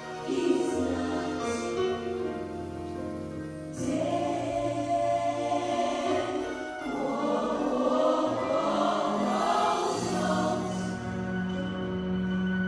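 Gospel choir music, a choir singing held chords that change a few times.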